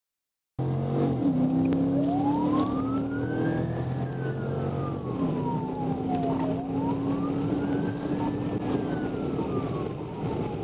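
Police car siren on a slow wail, rising and falling about every four and a half seconds, over the pursuing car's engine and road noise. It starts abruptly about half a second in.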